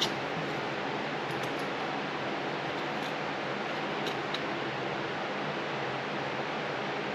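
Steady fan-like hiss with a few faint, light clicks of small metal parts being handled, as a throttle butterfly plate is fitted into its shaft.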